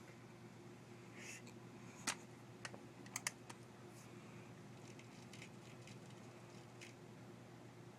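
Irregular light clicks and taps from an air gun being handled between shots, loudest about two seconds in and again just after three seconds. A faint steady hum runs underneath.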